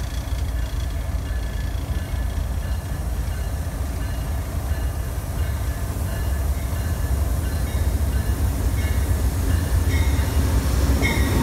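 Steady low rumble of CSX GE Evolution-series diesel locomotives on the near track, growing louder as an Amtrak passenger train approaches on the adjacent track. A few short high squeals of wheels come in near the end.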